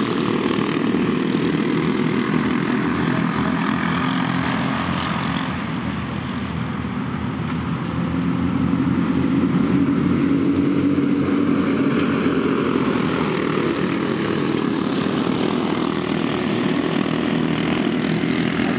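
Several box-stock racing go-karts with single-cylinder four-stroke clone engines running at high revs in a race, a steady buzzing drone that eases off slightly and then swells louder around the middle.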